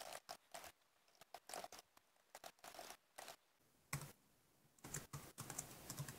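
Faint typing on a computer keyboard: irregular keystrokes in short runs separated by brief pauses.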